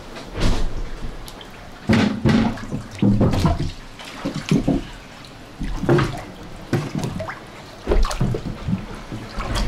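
Sea water sloshing and splashing in the flooded cabin of a sailboat holed on a reef, with irregular knocks and thumps every second or two as waves strike the broken hull.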